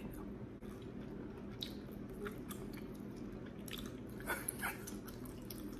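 Soft chewing of buttered lobster tail meat, with a few faint mouth clicks over a low steady hum.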